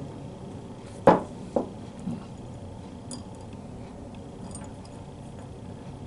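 Small steel parts clinking and tapping while a pawl spring is fitted into a ratchet head: a sharp metallic clink about a second in, a second one half a second later, a softer one after that, then a few faint ticks.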